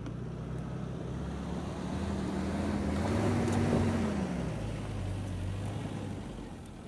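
1998 Suzuki Jimny Wide's 1.3-litre four-cylinder engine pulling hard as the small 4x4 climbs a steep dirt slope past the microphone, with its front wheels slipping for traction. The engine note rises to a peak about three and a half seconds in, then falls away.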